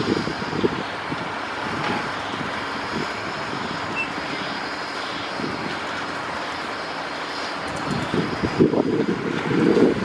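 Steady drone of construction machinery running. From about eight seconds in, wind buffets the microphone with loud low rumbling.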